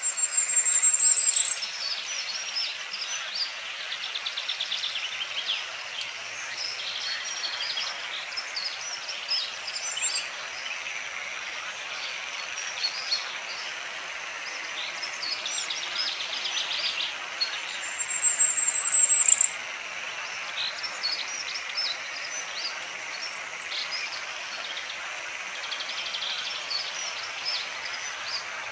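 An outdoor chorus of many small animal calls: dense chirps and pulsed trills, with a loud, high rising trill at the start and again about 18 seconds in.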